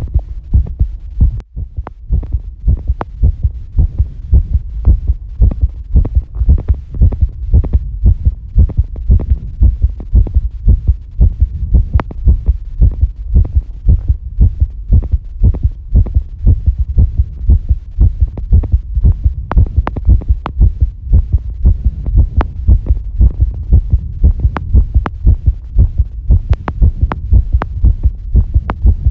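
A person's heartbeat recorded close up: a steady, fast run of deep low thuds, beat after beat. A few sharp clicks come through now and then.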